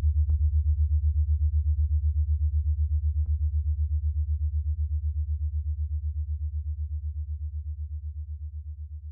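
Low electrical hum on the audio track, throbbing about eight times a second and slowly fading, with a few faint ticks. No game sound can be heard.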